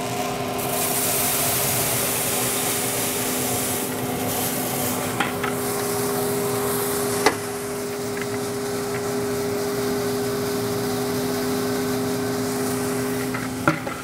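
Five pounds of green coffee beans pouring into a Valenta 7 fluid-bed roaster, a dense hiss for the first few seconds that then eases as the beans tumble in the air stream. Under it the roaster's loft-air blower hums steadily, with a couple of sharp clicks.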